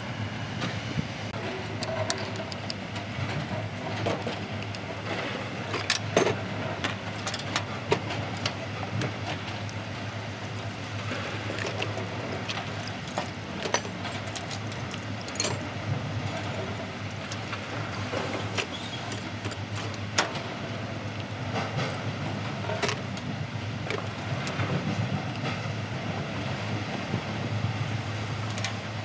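An engine running steadily under scattered light metallic clinks and taps.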